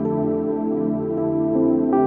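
Slow ambient relaxation music made of long sustained tones, with new notes coming in about a second and a half in.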